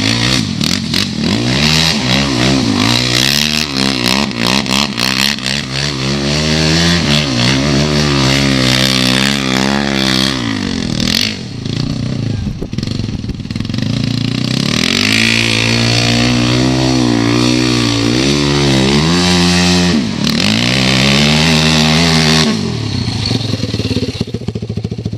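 ATV engine revving up and down over and over, with two short lulls, then dropping back to a lower steady note near the end.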